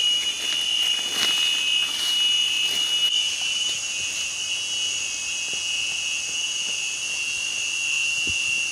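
Insects droning steadily at a high pitch in the forest, with a few faint scratches and taps of fingers digging in loose soil.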